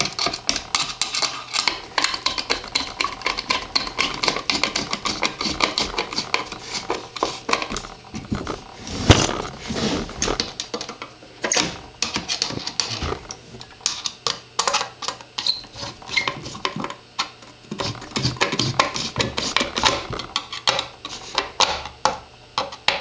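A screwdriver turns a screw into the metal housing of a high-pressure sodium floodlight, among rapid, irregular clicks and taps as the metal frame and its glass front are handled.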